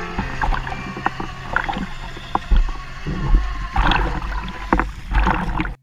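Sea water slapping and splashing at the stern of a dive boat as divers climb out onto its ladder, with irregular knocks and a steady low hum from the boat. The sound cuts off suddenly near the end.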